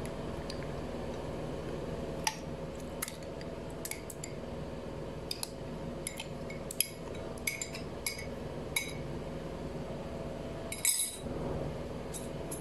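Kitchenware clinking as curd is scooped from a cup into a plastic mixer jar: a run of short, sharp taps and clicks, with a brief scrape near the end.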